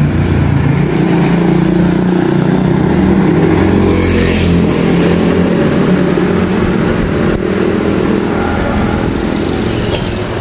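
Steady rushing noise of riding a bicycle along a wet street: wind buffeting the microphone over the hum of tyres on the road, loudest in the low end.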